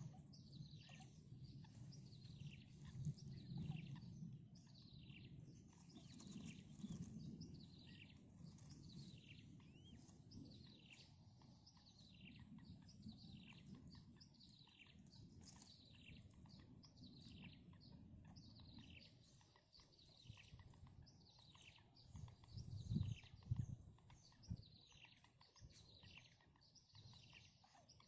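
Small birds chirping steadily, a string of short, falling high chirps a little more than one a second, over a faint low rumble. Two or three dull low thumps come about three quarters of the way through.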